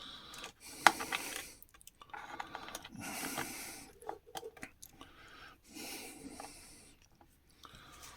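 Handling noise from plastic radio parts: scattered small clicks and rubbing as a wiring connector is pushed into place inside a Makita site radio, with one sharp click a bit under a second in.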